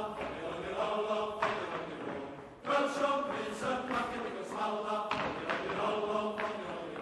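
Male voice choir singing held chords in phrases that swell, fade and begin again, with a sudden new entry about two and a half seconds in.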